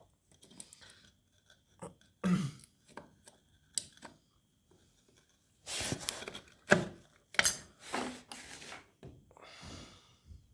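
Motorcycle clutch plates being handled and slid into a clutch basket: a series of small metallic clicks, taps and scrapes, with a longer scraping stretch a little past halfway.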